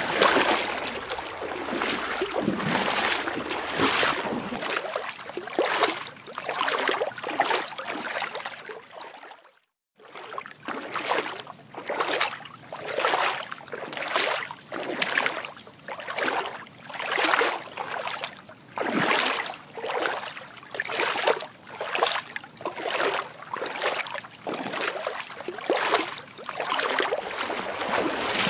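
Swishing, sloshing water sound in repeated swells, with no voice or music. It cuts out briefly about nine seconds in. After that the swells come regularly, roughly one a second.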